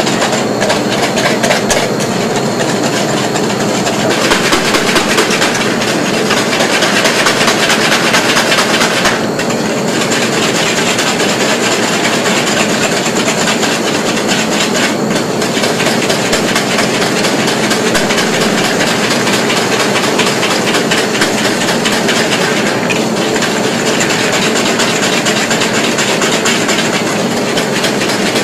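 Wire whisk beating lime custard in a stainless steel bowl set in a bowl of ice: a fast, steady clatter of metal wires against the metal bowl as the cooked custard is chilled.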